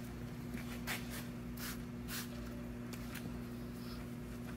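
Several short hissing squirts from a trigger spray bottle, with rubbing as the painted side of a milling machine is wiped down. A steady low hum runs underneath.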